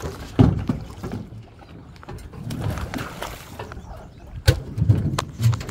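A hooked paddlefish thrashing and splashing at the surface beside the boat, with a loud thump about half a second in and a few sharp knocks near the end.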